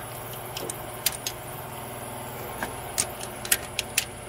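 Scattered sharp metallic clicks from a torque wrench and socket being worked on a cylinder head bolt of a 3.3 V6, over the steady hum of a shop air compressor running.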